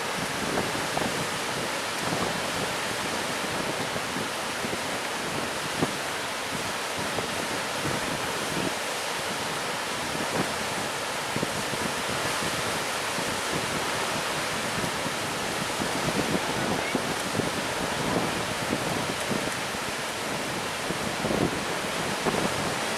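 Hurricane-driven surf breaking and washing in a steady noise, with wind buffeting the microphone.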